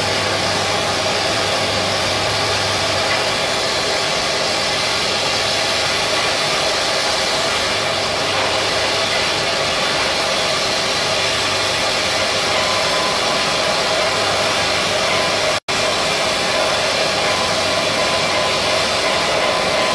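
Steady, loud shipyard machinery noise: a constant rushing hiss over a low hum. The sound cuts out for an instant about three-quarters of the way through.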